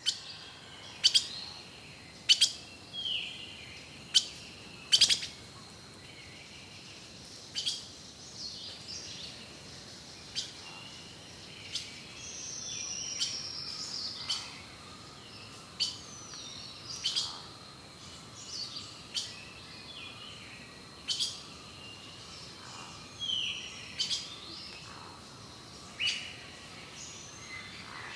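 Several birds calling: sharp, short chip-like calls repeating every second or two, mixed with falling whistled notes, over a steady high-pitched tone.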